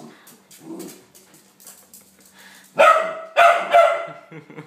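A small dog barking in alarm at a flat dust mop being pushed past it, breaking into about four loud barks in quick succession about three seconds in.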